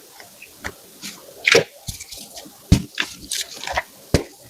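Blocks of gym chalk being crushed: scattered crumbly crunches and sharp cracks at irregular intervals, a few louder snaps among softer crumbling.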